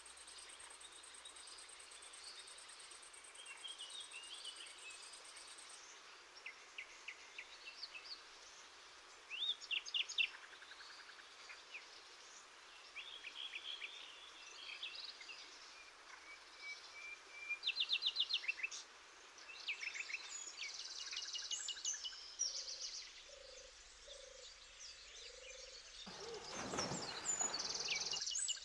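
Several birds calling and trilling in short bursts over the steady rush of river water. A few low, even notes sound a little past the middle, and a louder, deeper rush lasts about two seconds near the end.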